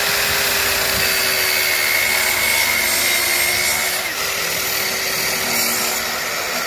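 Electric mitre saw cutting through a 25 mm MDF board: a loud, steady motor-and-blade whine over the hiss of the cut. The pitch dips slightly about four seconds in and starts to fall at the very end.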